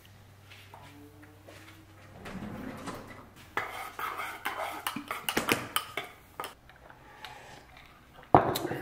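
Dishes and cutlery clinking and rattling while coffee is made, with a run of small clinks a few seconds in and one sharper clink near the end.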